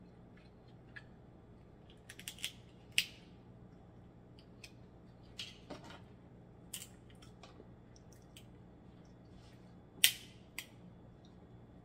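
Snow crab leg shells cracked and snapped apart by hand: a scattering of short, sharp cracks and clicks, the loudest about three seconds in and again about ten seconds in.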